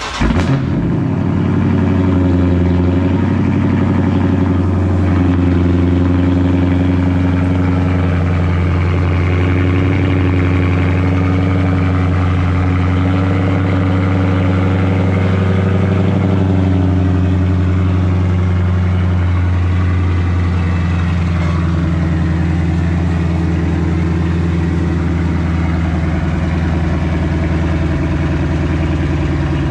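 Straight-piped Dodge Challenger Scat Pack's 6.4-litre 392 HEMI V8 settling from its start-up flare in the first second, then idling steadily and loud.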